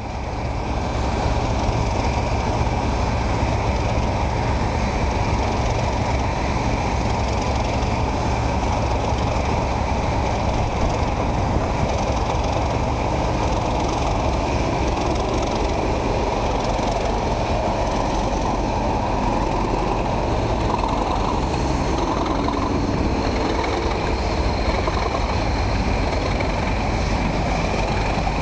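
Diesel train running steadily: a continuous engine drone over a heavy low rumble.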